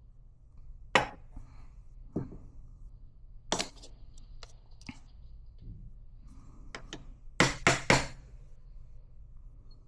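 Scattered hard knocks and clinks of coffee-making gear being handled and set down, with a quick run of three louder knocks about seven and a half seconds in.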